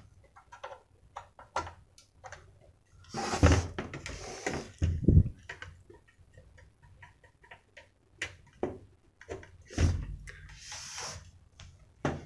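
Handling clicks and knocks from an opened satellite receiver as its front-panel display ribbon cable is plugged in and the front panel is moved into place, with a few heavier thumps and short rustles among scattered small clicks.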